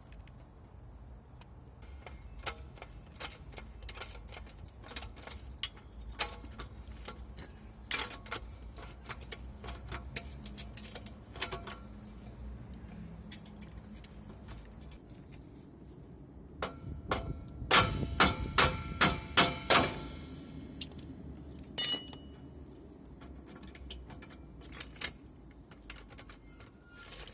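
Steel tools clinking and tapping as they are handled, then a quick run of about seven loud, ringing hammer blows on metal, with a few more single knocks after. This is hands-on work freeing a front suspension ball joint.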